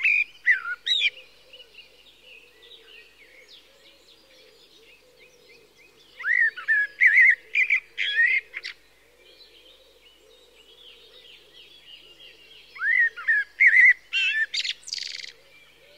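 Woodland songbirds singing: loud phrases of quick sweeping notes at the start, again about six seconds in and near the end, with fainter chirps between and a faint steady hum underneath.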